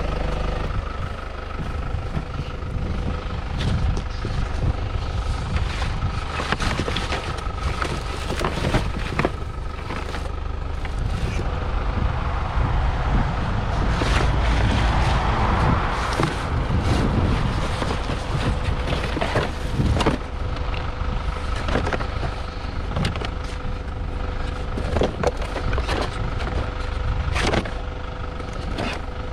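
A motor vehicle's engine running steadily, with scattered knocks and clicks over it and a louder hissing swell about halfway through.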